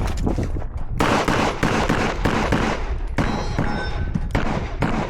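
Rapid gunfire: a long string of shots fired in quick succession, the string getting dense about a second in.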